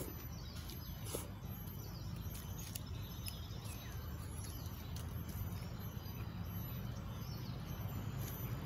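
Rural outdoor ambience: faint bird chirps and insects over a steady low background noise, with a few soft clicks.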